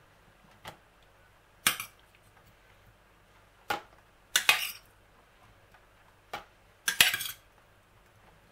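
A metal utensil clinking and scraping against a stainless-steel pot as beetroot slices are lifted out: about six separate sharp clinks, a second or two apart.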